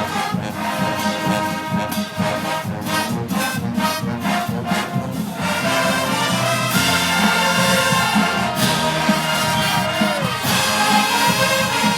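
Marching band playing, brass over drums. Sharp drum strokes carry the first half, then the full brass section comes in louder and sustained about halfway through, with a trombone-like slide near the end.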